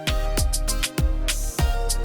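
Music with a steady, fast kick-drum beat, with a brief cymbal wash about one and a half seconds in.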